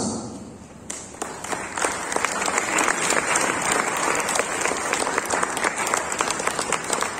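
Audience clapping, starting about a second in and holding steady.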